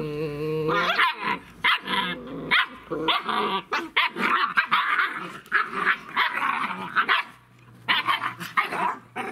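German shepherd puppies play-fighting, growling, yapping and barking in quick, closely packed bursts. It is rough play, not real aggression.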